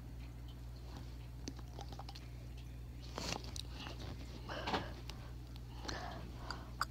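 Faint wet mouth sounds: a few soft lip smacks and tongue clicks, with short puffs of breath, over a steady low hum.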